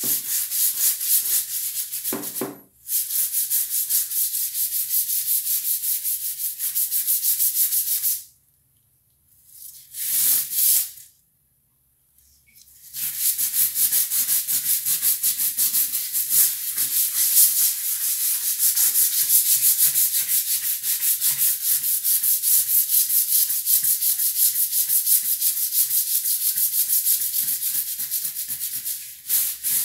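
Long-handled scrub brush scrubbing wet ceramic floor tiles in rapid back-and-forth strokes, working off crust and stains loosened by oxalic acid cleaning powder. The scrubbing breaks off briefly about two and a half seconds in, then stops for several seconds about a third of the way through, with one short burst in between, before resuming steadily.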